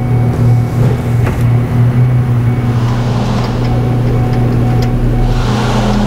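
Ford 4.6 V8 engine idling with a steady low hum that pulses unevenly for the first couple of seconds; the engine has misfires on cylinders 2 and 8. A few faint clicks come about a second in.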